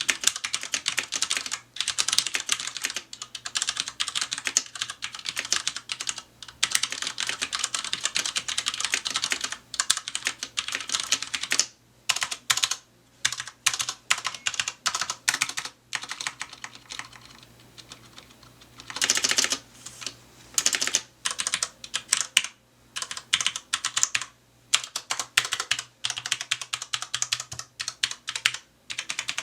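Typing on a Filco Majestouch 2 Ninja mechanical keyboard with Cherry MX Brown tactile switches: rapid runs of keystroke clicks with brief pauses. There is a slight spring ping in the keys, which the owner finds barely noticeable.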